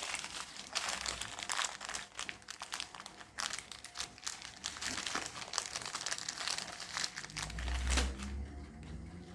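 Rustling and crinkling of plastic with many small clicks and knocks as things are handled and rummaged through, with a short low thump about eight seconds in.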